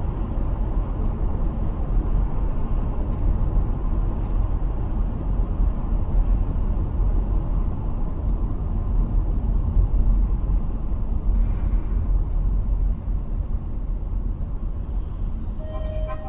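Steady low rumble of a moving car, engine and road noise, with no crash or impact heard.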